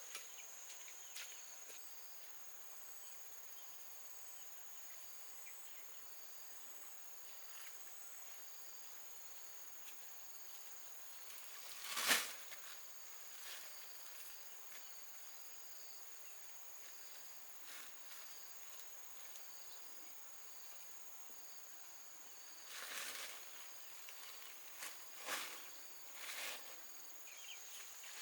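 Steady high-pitched insect chorus, with repeating pulsed calls just above and below the main tone. One sharp knock comes about twelve seconds in, and a few short scraping noises come near the end.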